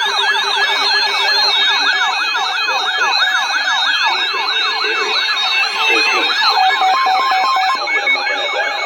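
Several electronic sirens sounding together in a fast yelp, their pitch sweeping up and down over and over, with a few steady tones beneath; they stop just at the end.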